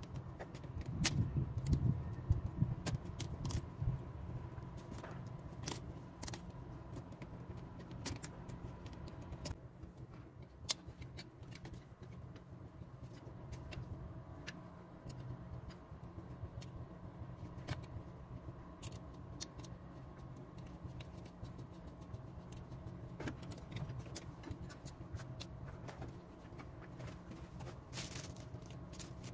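Scattered light metallic clicks and clinks from pliers and a new accelerator cable's end fittings being worked at the throttle linkage of an Isuzu 6HH1 truck engine, busiest in the first few seconds and again near the end, over a steady low hum.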